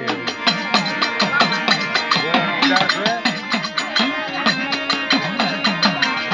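Folk music: a fast, even run of percussion strokes under a wavering melody line.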